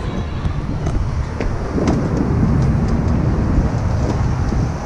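Street traffic noise with wind rumbling on the microphone.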